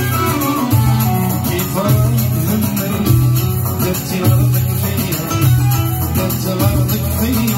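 Live band music: a man singing into a microphone, backed by keyboard and goblet drum, with a plucked-string melody over a repeating bass line.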